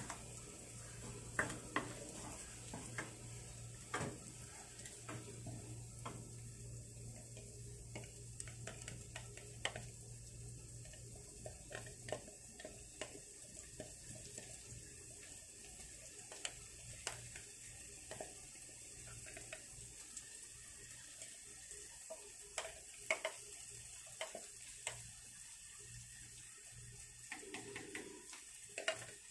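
Wooden spatula stirring, scraping and tapping irregularly against a nonstick wok as blended spice paste fries in oil with a faint sizzle.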